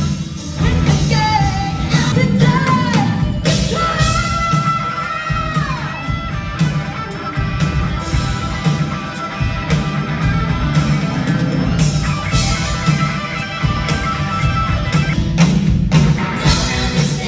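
Loud rock music with a singing voice and a steady beat.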